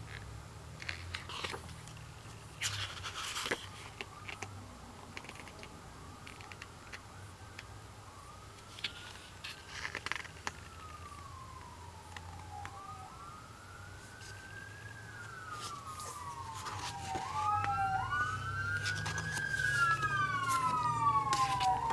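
Pages of an album photobook handled and turned, with scattered paper rustles and taps. From about eight seconds in, an emergency-vehicle siren wails, its pitch sliding up and down, growing louder with two wails overlapping near the end over a low rumble.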